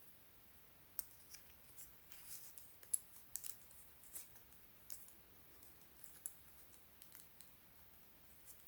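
Faint, irregular clicks and light scraping from a leather watch band and its stainless steel buckle being handled, the sharpest click about three seconds in.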